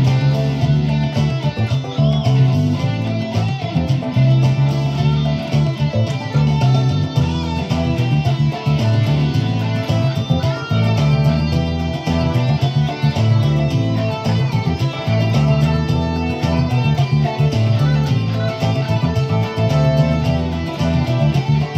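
Stratocaster-style electric guitar playing a boogie over a backing track with a steady bass line and a drum beat.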